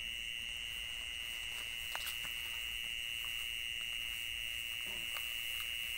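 An insect's steady, unbroken high-pitched trill, like a continuous buzz, with a few faint ticks under it.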